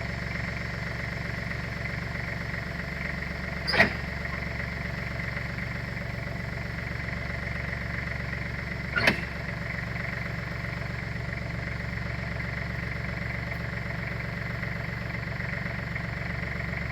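A small engine running steadily at a low, even speed, with two sharp knocks about five seconds apart.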